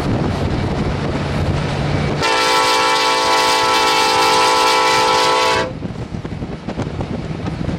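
Union Pacific diesel locomotive's multi-note air horn sounding one long blast, starting about two seconds in and cutting off after about three and a half seconds, over the low rumble of the passing train and wind. A second blast begins at the very end.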